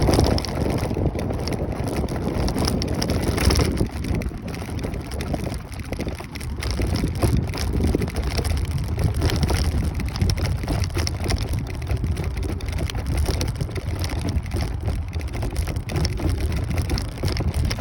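Steady wind rush and road rumble from riding a Kaabo Wolf Warrior 11 Pro electric scooter, with wind buffeting the microphone.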